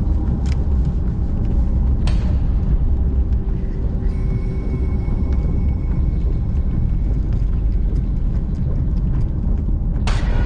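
Steady heavy low rumble of wind and vehicle noise, with two short sweeping whooshes, one about two seconds in and one near the end.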